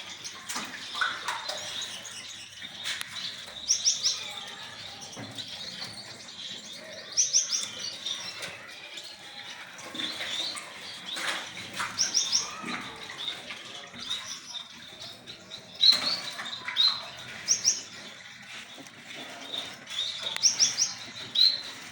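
Caged parrots chirping: short high chirps throughout, with quick runs of three or four very high notes repeating every few seconds.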